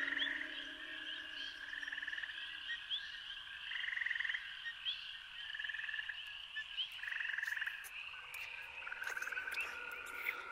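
Frogs calling in a chorus: short trilled croaks of about half a second repeat every second or two, over a bed of faint, higher chirping.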